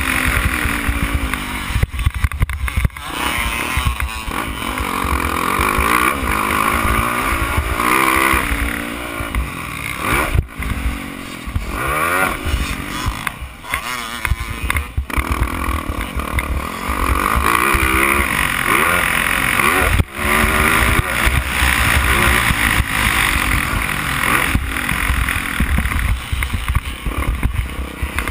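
Motocross bike engine at race pace, revving up and falling off again and again as the rider works the throttle through gears and corners, with several brief drops where the throttle is closed. Wind buffets the bike-mounted camera's microphone throughout.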